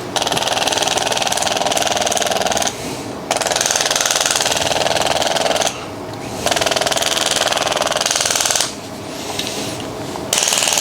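Handheld electric percussive tool used for soft tissue work on the knee, hammering rapidly in four spells of about two to three seconds, with short breaks as it is lifted and moved.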